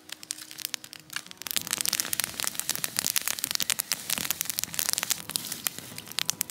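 Campfire of dry sticks crackling, thin at first and then, from about a second and a half in, a dense run of sharp snaps and pops as the fire burns well.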